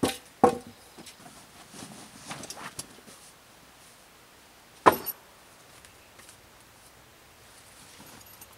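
A canvas backpack and gear being handled: rustling fabric with a few sharp clacks, two near the start and one about five seconds in.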